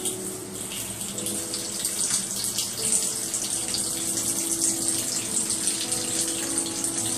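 Running water from a shower stream splashing onto a turtle's shell and a tiled floor: a steady hiss of spray.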